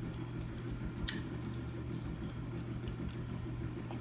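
Steady low hum with a faint high-pitched whine underneath, broken by one short click about a second in.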